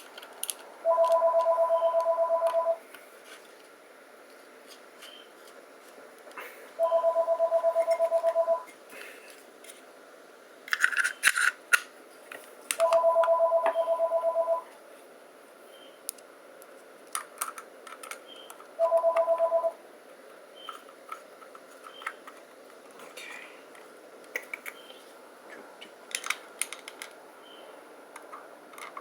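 A telephone ringing four times, each ring a two-tone trill of about two seconds, six seconds apart. Between the rings come small clicks and scrapes of the pistol's grip panels being fitted, with a short cluster of them about eleven seconds in.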